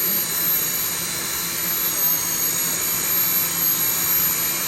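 Electric glass-polishing machine running steadily on a windscreen, grinding polishing compound into a scratch: an even hiss with high, steady whining tones.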